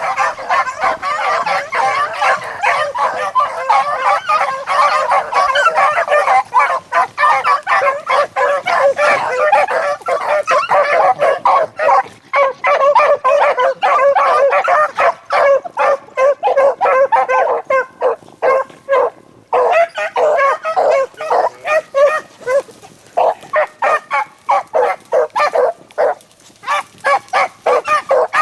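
A pack of beagles baying on a rabbit's trail, many hounds giving tongue at once, thinning to fewer, separate cries after about twenty seconds with a short lull near the middle.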